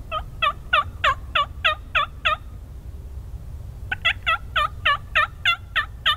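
Turkey yelping: a run of loud yelps, about three a second, stops about two and a half seconds in, and a second run starts about a second and a half later.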